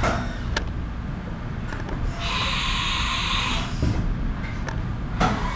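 Haas VF-4 CNC milling machine changing tools: a few sharp clicks and knocks, a hiss of compressed air lasting about a second and a half, and a louder clatter near the end, over the machine's steady hum.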